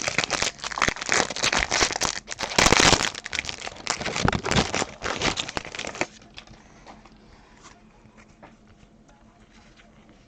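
A jumbo pack of 2020 Topps Update baseball cards being torn open, its wrapper crinkling and ripping. The noise is loudest a little under three seconds in and stops about six seconds in.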